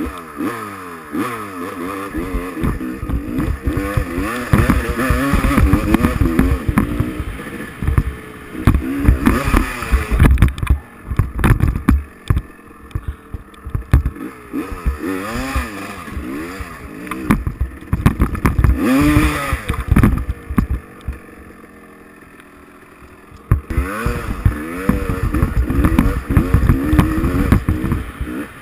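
Dirt bike engine revving up and down as it is ridden over rough ground. About three-quarters of the way through it drops back to a low, quiet run for about three seconds, then revs up again.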